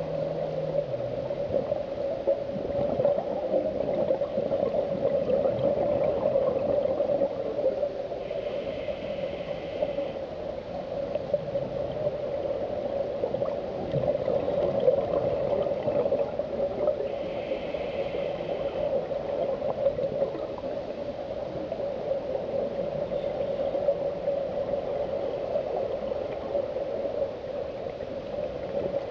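Underwater sound picked up through a compact camera's housing: a steady droning hum, with a scuba regulator's short hissing breath twice, about nine seconds apart.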